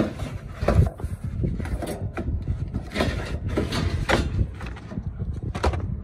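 Pleated air filters with cardboard frames being slid out of a rooftop HVAC unit's filter rack and handled, giving a run of irregular scraping and rustling strokes, over a steady low rumble.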